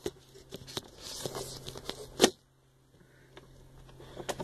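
Handling noise: a run of clicks and knocks with rustling, the loudest knock a little past two seconds in, then quieter with a faint low hum underneath.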